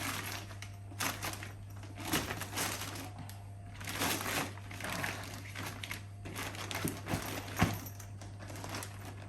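Irregular rustling and scraping of a fabric-and-plastic delivery bag being handled as its stiffened insulated box is pushed inside, with a few sharp knocks. A steady low hum runs underneath.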